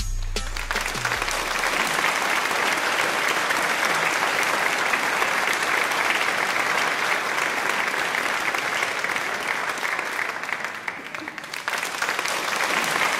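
Crowd applause: steady, dense clapping that thins briefly near the end and then swells again.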